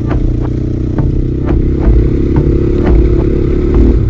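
Dirt bike engine running steadily at low speed, with sharp clattering knocks about two or three times a second as the bike rattles over a gravel track.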